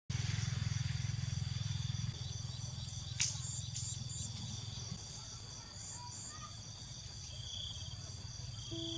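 A steady, high insect chorus with a regular chirping pulse over a low rumble that is loudest in the first two seconds, and one sharp click a little after three seconds in.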